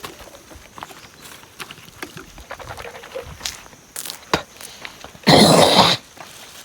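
Footsteps on a dry path with scattered small crunches and clicks, and one brief, louder rough rustling noise about five seconds in.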